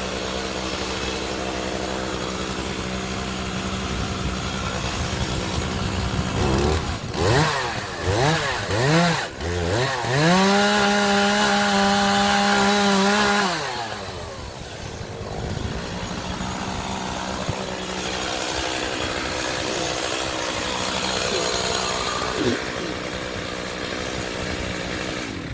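Chainsaw engine idling, blipped up and down a few times, then held at high revs for about three seconds before dropping back to idle.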